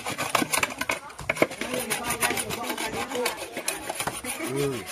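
Coconut being scraped on a hand coconut grater: quick, repeated rasping strokes of the blade through the coconut meat.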